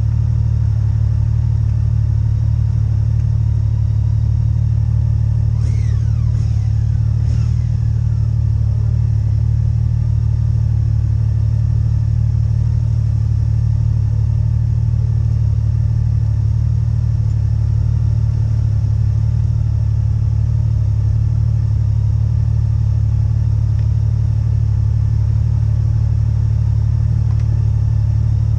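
Motorcycle engines idling steadily and low, with no change in pitch. Three brief high falling sounds come about six seconds in.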